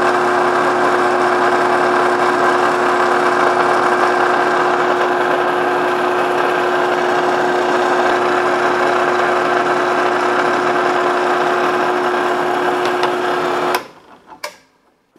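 Benchtop drill press running steadily with a steady motor whine while a 9/64 in. bit drills holes into a plastic CNC spindle housing, holes to be tapped for 8-32 screws that will hold the Z-axis bearings. The sound cuts off suddenly near the end, leaving a few faint clicks.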